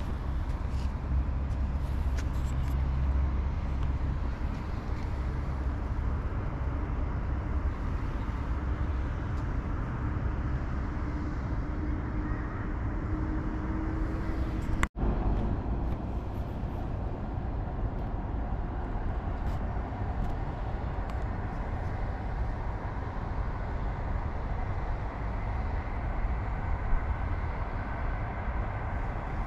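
Outdoor city ambience: a steady low rumble and hiss of distant road traffic. The sound drops out for an instant about halfway through.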